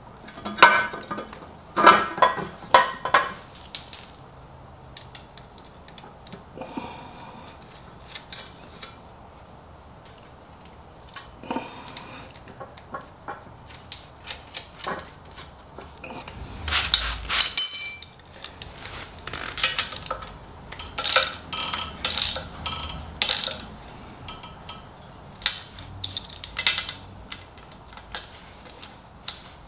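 Scattered clinks, taps and clicks of metal parts and hand tools as a cover and its bolts are fitted back onto a 1981 Honda Goldwing GL1100 engine. A brighter ringing metallic clink comes a little past halfway.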